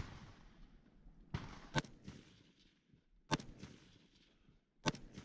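AR-15 rifle firing single shots: a quick pair about a second and a half in, another in the middle, and one more near the end.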